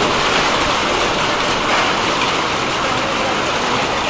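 Hailstorm: hailstones and rain pelting corrugated tin roofs and a concrete yard, a steady, dense clatter.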